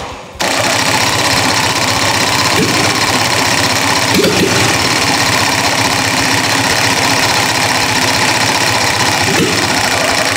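Petrol engine converted to diesel, with raised compression and a diesel injection pump, cranked on its starter for about ten seconds with starting spray in the intake. It fires as it turns but does not run on its own yet.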